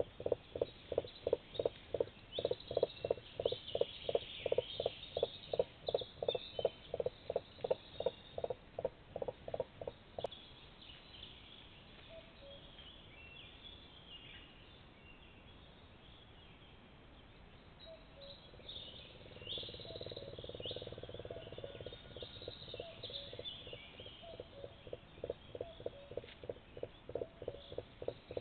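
Common crane giving low, rhythmic pulsed calls, about three a second, which die away about ten seconds in. After a softer low rumble the pulsing starts again about two-thirds of the way through, with songbirds chirping in the background.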